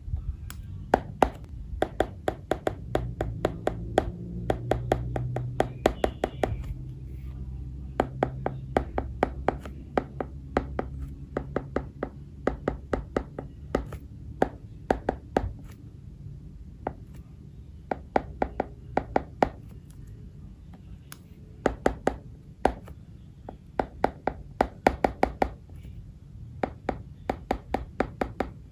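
Stylus tip tapping and clicking on an iPad's glass screen during handwriting, in quick runs of sharp taps with short pauses between them. A steady low hum runs underneath.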